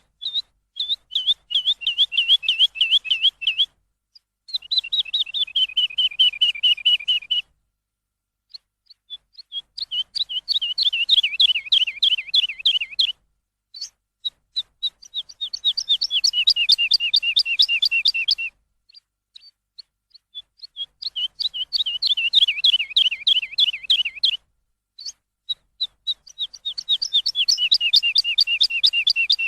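A songbird singing in long bouts of rapid, repeated down-slurred chirps, about ten a second, each bout lasting three to five seconds with short pauses between; six bouts in all, some starting with a few scattered notes.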